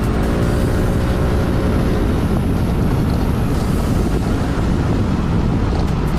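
Yamaha Majesty S scooter's single-cylinder engine running through an RPM aftermarket muffler while riding, its note rising as it pulls away over the first two seconds, then settling into steady running under the rush of wind and road noise on the mounted camera's microphone.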